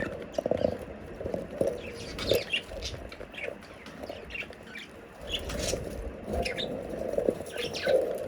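Budgerigars chirping and chattering: a stream of short, high chirps over a lower continuous chatter.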